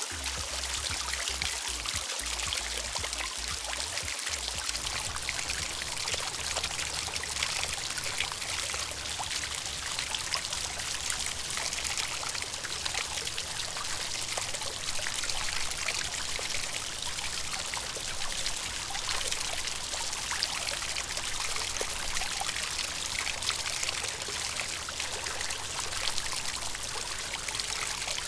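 Water from a small garden water feature pouring and trickling steadily into a pond.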